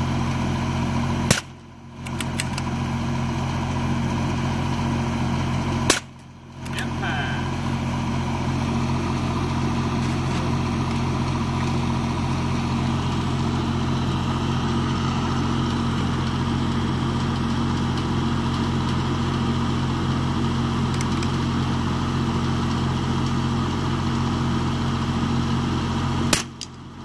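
Three single rifle shots, about a second and a half in, about six seconds in and near the end. Each sharp crack makes the recording drop out for a moment. Under them runs the steady hum of an engine-driven light tower's generator.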